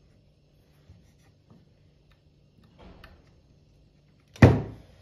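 Parts of a disassembled sewing machine being handled: a few faint clicks, then one loud clunk about four and a half seconds in.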